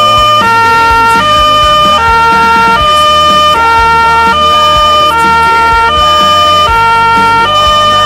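Two-tone hi-lo siren of a MAN 12.224 fire service chemical rescue truck, switching back and forth between two pitches about every three quarters of a second. It cuts off near the end.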